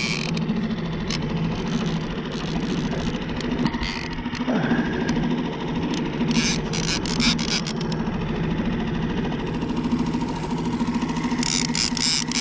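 Small outboard motor running steadily at trolling speed while a fish is reeled in. Short runs of sharp clicking from the fishing reel come in about six seconds in and again near the end.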